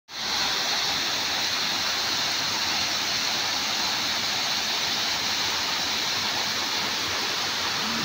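Waterfall cascading down tiered rock steps: a steady, even rush of falling water.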